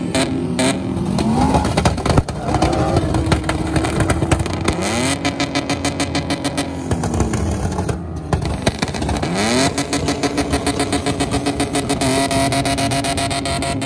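Toyota Land Cruiser 70-series pickup engine revving hard through a twin-tip aftermarket exhaust as the truck spins on sand. The pitch climbs and drops several times. A fast, even pulsing runs through the sound while the engine is held high.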